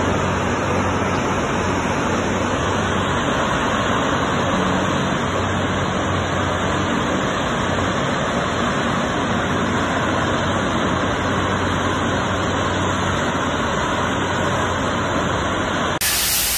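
Steady roar from a large fire burning in an alumina refinery's plant structures, with a low, even hum from running plant machinery underneath.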